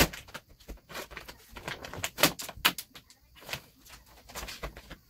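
Gloss black vinyl wrap film crackling and rustling as it is peeled off its white backing paper and lifted, in a string of irregular sharp crackles.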